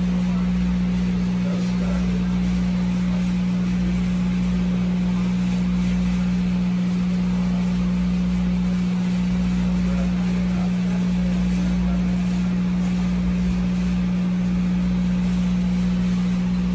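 Steady engine drone of a fishing boat heard inside its cabin: a constant low hum with rumble beneath, unchanging throughout.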